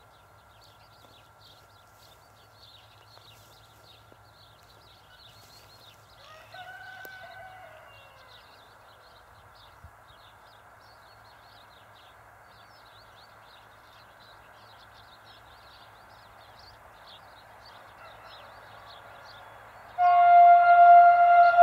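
Birds chirping over the faint, slowly growing sound of an approaching train. About twenty seconds in, the horn of a PKP EP07 electric locomotive starts suddenly and loudly, a steady chord of several tones.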